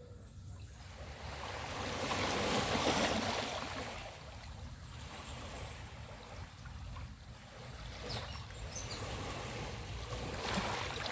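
Ocean waves washing onto a beach: a wave surges in about two to three seconds in and eases off, and another swells near the end.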